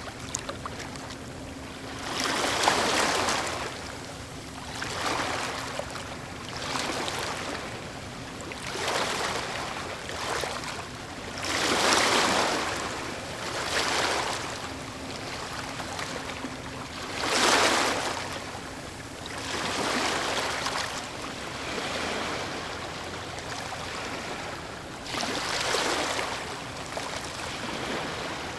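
Ocean waves washing ashore, a rush of surf swelling and fading about every two to three seconds.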